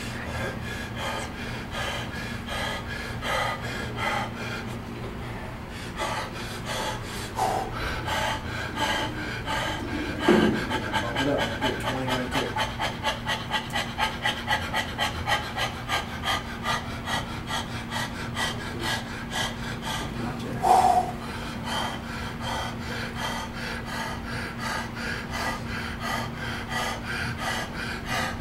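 A man panting hard with quick, rhythmic breaths as he strains through a slow chest press set, over a steady low hum. A short louder sound breaks in about a third of the way through and again about two-thirds through.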